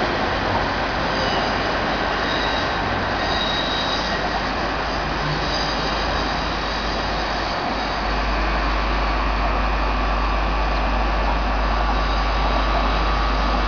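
Two coupled CP Series 0450 diesel multiple units running away along a curve, their wheels squealing on the rails in the first half. A low rumble steps up about eight seconds in.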